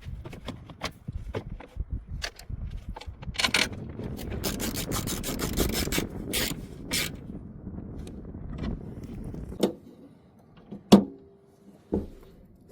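Hand tools scraping, rubbing and clicking irregularly during spark plug work, then three sharp knocks in the last few seconds.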